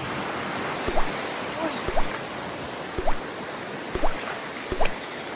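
Steady surf wash of waves on a sandy beach. Sharp clicks, each followed by a short rising chirp, come roughly once a second over it.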